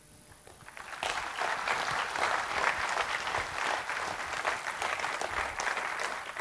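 An audience applauding. A few scattered claps swell into full applause about a second in.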